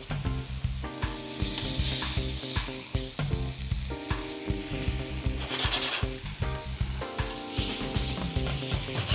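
Flour-dredged snapper fillets sizzling steadily as they pan-sear in hot vegetable oil in a non-stick frying pan, with background music underneath.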